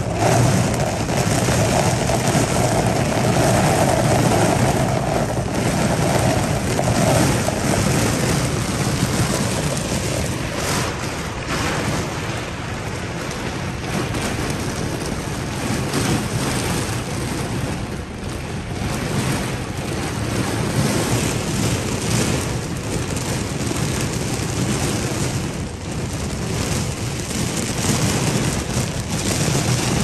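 Heavy rain pouring down with floodwater rushing, a steady dense wash of noise.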